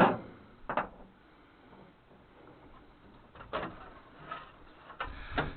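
A sharp knock, followed by a second about a second in, then a few lighter knocks later on: parts of an old truck body being worked loose and handled.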